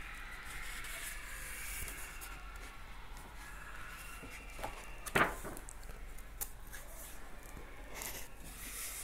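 Paper rustling and rubbing as the pages of an old hardbound encyclopedia are handled, with a few small clicks and one louder short, sharp sound about five seconds in.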